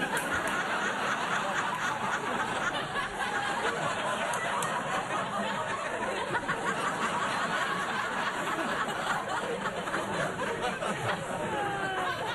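Studio audience applauding, cheering and laughing steadily, with a few whoops near the end.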